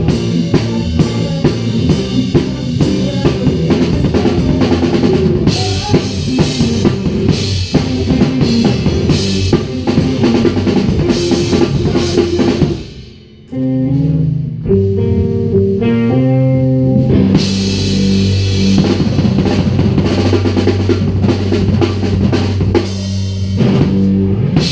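Live blues-rock band playing: drum kit and amplified electric guitars. About halfway through, the band stops short for a moment, the guitars play a few notes on their own, and then the drums come back in with the full band.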